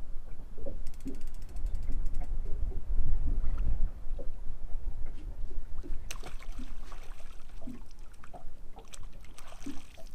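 Fishing reel being wound in to bring a fish up, its gears and ratchet clicking, with a fast run of clicks about a second in. A steady low rumble lies underneath, and a noisy rustle comes in about six seconds in.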